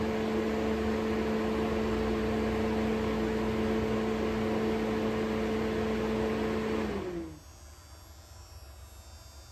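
Exhaust fan in the hood of a Dunel GW1000 glow wire test apparatus running with a steady whoosh and hum. About seven seconds in it is switched off: its hum slides down in pitch as it spins down, leaving a faint hiss.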